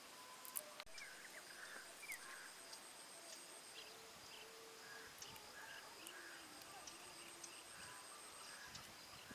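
Faint outdoor ambience: a steady high insect drone with scattered short bird chirps.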